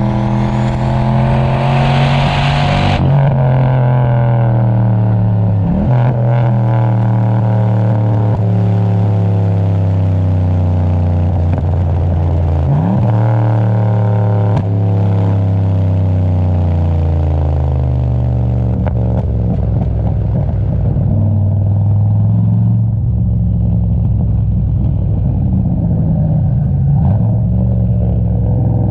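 Turbocharged LS1 V8 accelerating hard through the gears of a manual gearbox. The engine note climbs steadily, drops sharply at an upshift about six seconds in and again about thirteen seconds in, then settles into a steadier, lower note for the rest.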